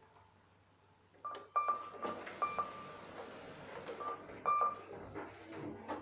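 KONE elevator car buttons being pressed: about five short, high beeps, each with a click, confirming each floor call as it is registered and its button lights.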